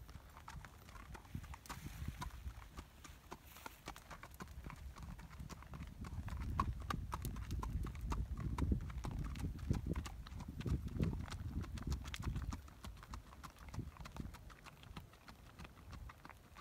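Horse's hooves clip-clopping at a walk on a dirt and gravel track, an uneven stream of sharp steps over a low rumble, louder in the middle as the horse passes close.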